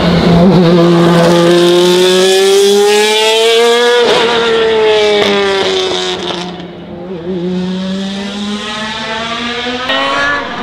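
1999 BMW V12 LMR Le Mans prototype's V12 engine running hard, its pitch climbing steadily for about four seconds. The note then breaks and falls as the car passes and pulls away, grows quieter, and climbs again near the end.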